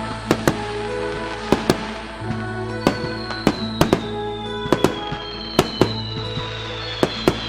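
Fireworks going off: sharp bangs at irregular intervals, a couple every second, over music.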